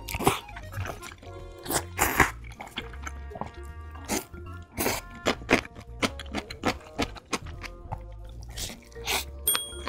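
Close-up eating sounds, mouthfuls of noodles and kimbap being slurped and chewed in short wet crunches, over steady background music, all sped up to one and a half times normal speed.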